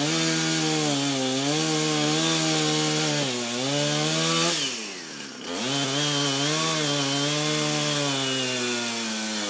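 Husqvarna two-stroke chainsaw running at high revs while cutting a dead tree, its pitch sagging and recovering under load. About five seconds in, the throttle drops off with a quick fall in pitch, then the saw revs back up and keeps cutting.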